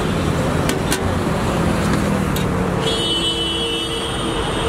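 Steady roadside traffic noise, with a few light metal clinks of aluminium pot lids being handled. From about three seconds in, a steady higher tone from the traffic joins it.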